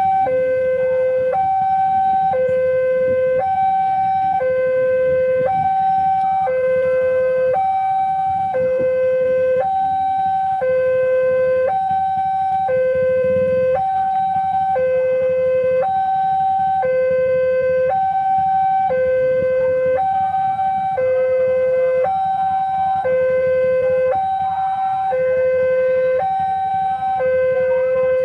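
Railway level-crossing warning alarm sounding its electronic two-tone signal, a low and a higher tone alternating about once a second without a break, the sign that a train is approaching and the barrier is closed.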